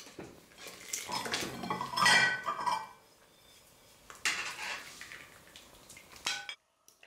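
Dishes and cutlery clinking, with the loudest, ringing clink about two seconds in and a few sharper knocks later; the sound cuts off suddenly near the end.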